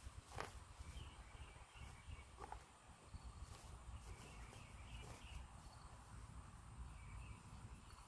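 Quiet ambience with faint short high chirps coming in a few brief runs, a low rumble, and a couple of soft clicks.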